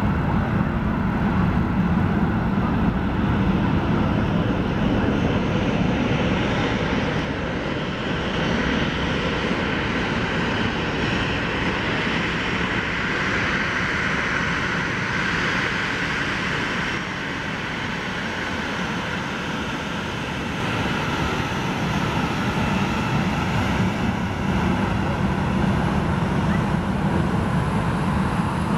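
Airliner's jet engines running as the plane taxis and turns: a steady jet rush that eases a little about two-thirds of the way through, then swells again near the end.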